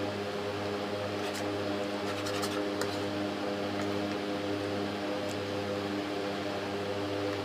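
Steady electrical hum with a row of even overtones, unchanged throughout. A few light clicks of a metal spoon against a ceramic plate about a second in, between two and three seconds in, and once past five seconds.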